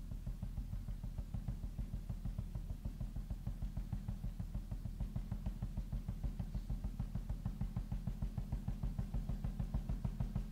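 Quiet recorded garage-rock music in a song's intro: a fast, even, low pulse repeating roughly seven times a second.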